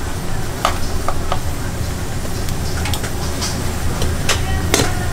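Ramen broth boiling hard in a thin aluminium pot over a gas burner, a steady low rumble, with a few light clicks of a utensil against the pot as the noodles are stirred.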